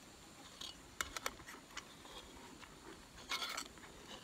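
A fork ticking and scraping against a frying pan while stirring scrambled eggs: a few light taps about a second in, then a short run of scraping a little past three seconds.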